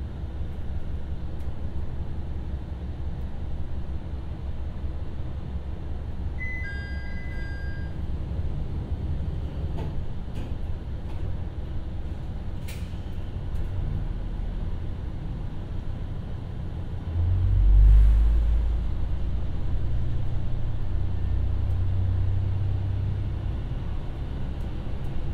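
Ibara Railway IRT355 diesel railcar heard from inside the cabin: the diesel engine runs with a steady low rumble. A short falling two-tone beep sounds about seven seconds in, and about seventeen seconds in the engine suddenly revs up, its rumble growing louder and staying so, as the car takes power.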